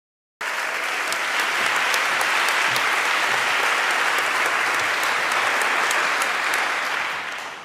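Audience applauding: a dense, steady clatter of many hands clapping that starts suddenly about half a second in and fades away near the end.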